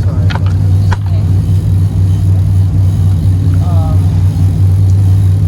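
Boat engine running steadily at a constant pitch under load, a loud low drone, with a few sharp clicks in the first second.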